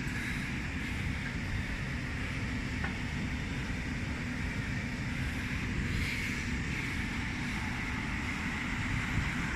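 Steady low rumble and hiss of outdoor refrigeration condensing units running.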